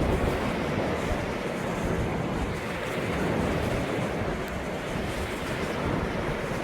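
Ocean waves breaking and washing onto the shore in a steady, rushing surf, with a low rumble of wind on the microphone underneath.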